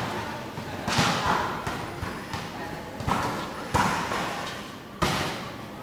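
A volleyball being struck about four times, each hit a sharp thud that echoes briefly in a large hall.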